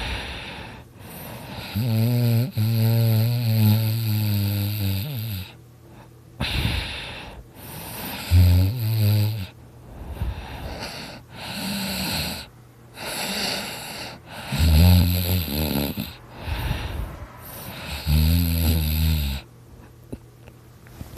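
A person snoring very loud: four long snores, the first and longest about two seconds in, with noisy breathing between them.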